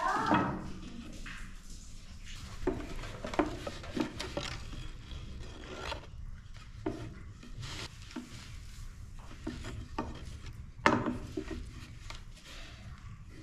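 A long thin wooden rolling pin rolling out dough for thin flatbread on a floured round wooden board: rubbing and scraping, with irregular light wooden knocks and one sharp knock about eleven seconds in.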